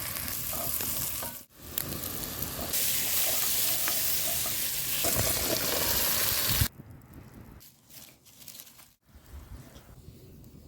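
Food sizzling and frying in a hot pan, a dense steady hiss that cuts off suddenly about two-thirds of the way through, leaving a much quieter background.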